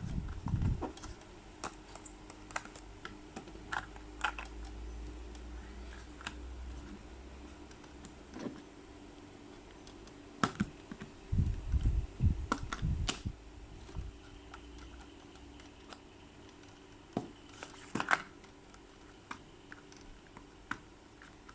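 Irregular light clicks and taps of small plastic packaging and parts being handled and opened, with a denser cluster of knocks about halfway through, over a faint steady hum.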